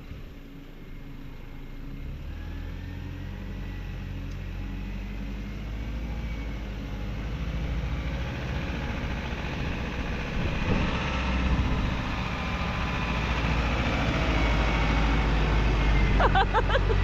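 Isuzu NPS 4x4 truck's four-cylinder turbo-diesel engine pulling slowly along a sandy track, growing steadily louder as the truck approaches and passes close by.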